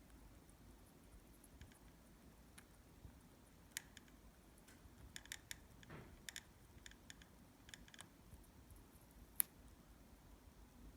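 Faint, scattered small clicks and taps over near-silent room tone, a little cluster in the middle and one sharper click near the end: a parrotlet's beak nibbling as it eats strawberry.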